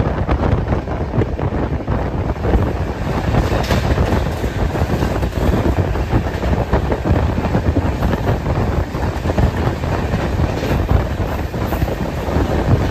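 Moving train heard from its open door or window: a steady rumble of wheels running on the rails with a dense, fast clatter, mixed with wind buffeting the microphone.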